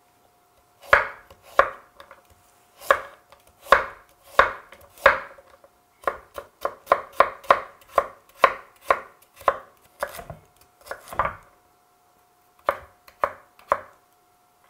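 Chef's knife chopping a carrot on a wooden cutting board: sharp knocks of the blade on the board, about a second apart at first, then quicker at about three a second as the slices are diced, with a short break about two-thirds through.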